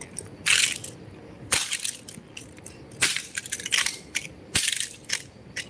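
Boots stamping on a broken plastic toy remote-control car on concrete: a handful of sharp, crackling plastic crunches, spaced about a second or more apart, with smaller clicks of scattering fragments between them.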